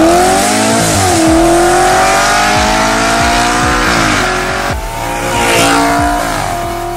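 Audi RS4 B8's 4.2 V8 with a tuned exhaust accelerating hard, its pitch climbing in long pulls broken by upshifts about a second in, about four seconds in and again near the end.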